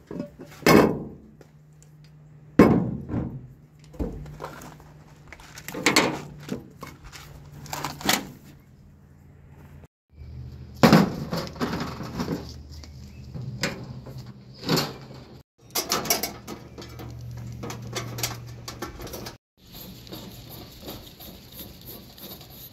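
Knocks and clatter of camp cookware being handled: a lidded pot, then a Coleman two-burner propane stove's metal case being set down and opened. A steady low hum runs underneath.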